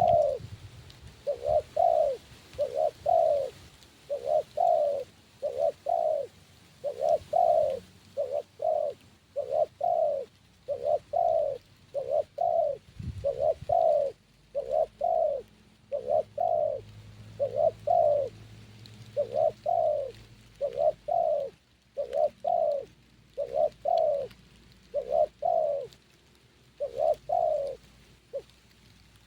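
Spotted dove (tekukur) cooing over and over in a steady rhythm of short, low paired notes.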